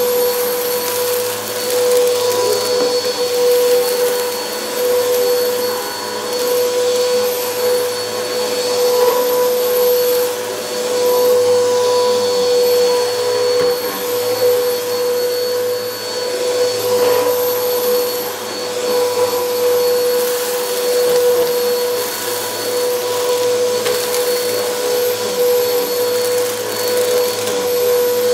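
Bissell PowerForce Helix Turbo bagless upright vacuum running on low-pile carpet: a steady motor hum with a whine over the rush of airflow, its level swelling and easing about every two seconds with the push-and-pull strokes.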